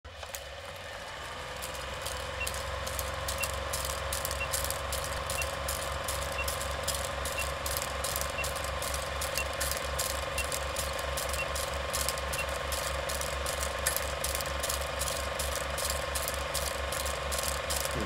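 Old cine film projector sound effect: a steady mechanical clatter of rapid clicks over a pulsing hum. Short faint beeps sound once a second for about ten seconds, ticking off a film countdown leader.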